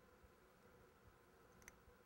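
Near silence: room tone, with one faint click near the end.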